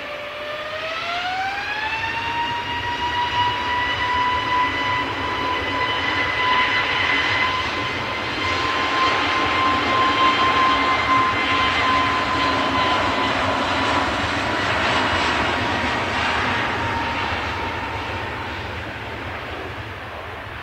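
Airbus A321neo's twin CFM LEAP-1A turbofans spooling up to takeoff thrust: a whine rises sharply in pitch over the first two seconds, then holds steady under a loud rushing roar. The sound fades near the end as the aircraft rolls away down the runway.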